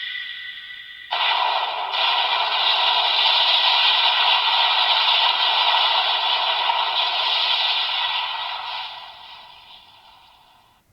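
Electronic finisher sound effect from a PDX Laser Raise Riser toy's speaker. After a brief drop about a second in, it is a long steady rushing whoosh that fades away over the last few seconds.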